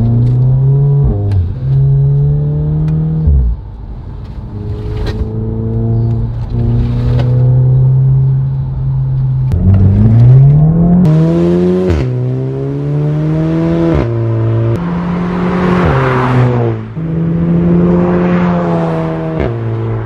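Volkswagen Scirocco engine running under way, holding steady revs, then climbing in pitch and dropping sharply several times as it shifts up through the gears.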